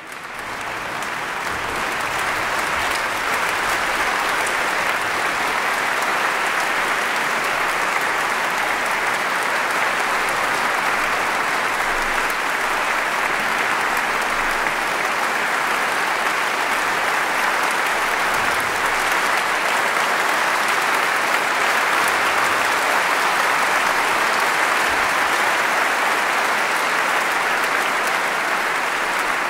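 An audience applauding, building up over the first couple of seconds and then holding steady.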